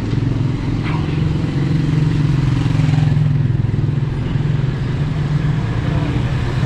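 A motor vehicle's engine running steadily close by, a little louder around two to three seconds in.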